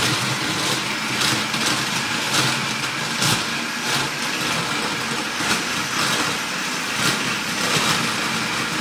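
Food processor motor running, chopping a load of pitted Medjool dates, with irregular knocks as the sticky date pieces are thrown against the bowl.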